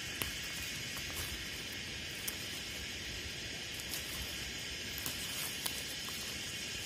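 Steady high-pitched insect chorus in the field, with a few short, sharp snaps and rustles as spring onion stalks are gathered and picked by hand.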